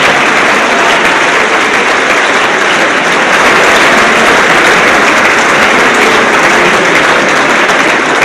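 A large seated audience applauding, a dense, steady clapping that holds at one level throughout.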